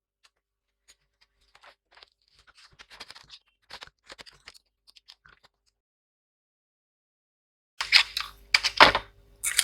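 A laptop's plastic case being handled and opened up: faint scratches and small clicks, then from about eight seconds in a run of louder, sharp plastic clicks and knocks.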